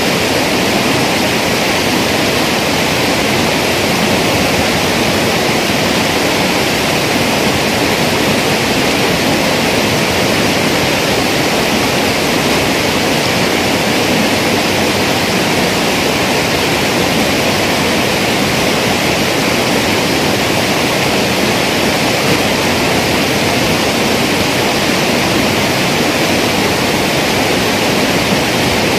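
Fast-flowing water in a concrete-edged irrigation canal, rushing loudly and steadily without a break.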